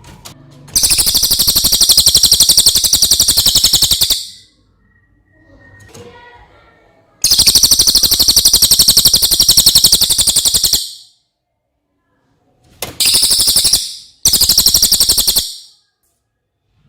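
A cililin songbird singing very fast, high-pitched rattling trills: two long ones of about three and a half seconds each, then two short ones near the end, with brief pauses between.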